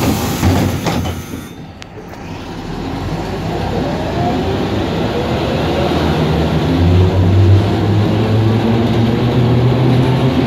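Interior of an Ikarus 280 articulated bus. The pneumatic doors hiss and shut with a thump about two seconds in. The diesel engine then pulls away, its pitch rising and the sound growing louder as the bus gathers speed.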